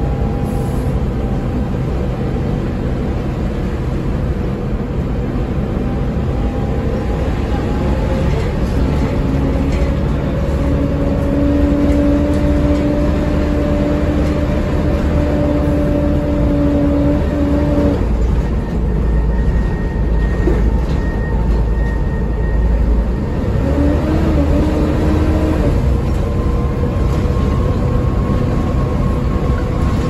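Volvo B7TL double-decker bus under way, heard from inside the lower deck: a steady engine drone and road rumble. A whine rises gradually and cuts off abruptly about eighteen seconds in, and a shorter whine comes in a few seconds later.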